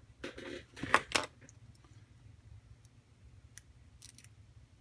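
Metal pick clicking and scraping inside the pin chamber of a brass lock body while fishing for a stuck spring. There is a quick cluster of sharp clicks about a second in, then only a few faint ticks.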